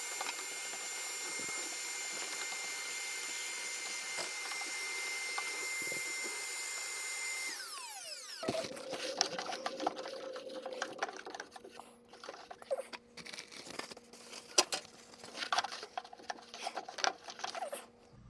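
Small handheld vacuum cleaner running with a steady high whine, switched off about eight seconds in and winding down with a falling pitch. After that, scattered clicks and light knocks.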